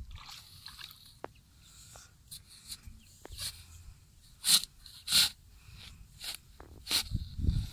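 A small spade chopping and scraping into wet clay soil, digging out a hole: a few sharp scrapes, the loudest three about four and a half, five and seven seconds in, with lighter clicks of the blade and clods between.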